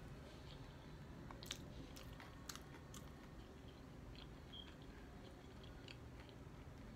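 Quiet mouth sounds of a person chewing a mouthful of KFC food close to the microphone, with a few sharp wet clicks and smacks about half a second apart between one and a half and three seconds in.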